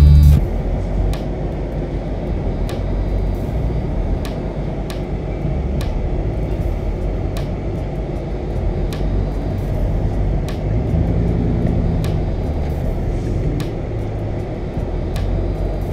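Ram pickup truck heard from inside the cab while driving slowly over a rough dirt trail: a steady low engine rumble that swells a little about two-thirds of the way in, with many sharp clicks and knocks from the truck bouncing over the ground.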